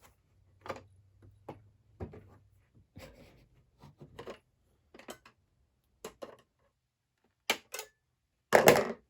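Scattered clicks and knocks from a McFarlane Toys Riddler puzzle box being handled as its buttons are pressed and its parts worked, with a louder clatter near the end.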